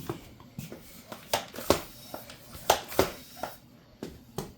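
About eight sharp clicks and knocks at uneven intervals, in a small room.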